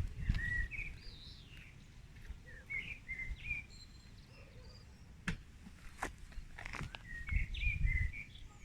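Wild songbirds chirping and singing in short, scattered phrases, with a few sharp clicks in the middle and a low rumble at the start and again near the end.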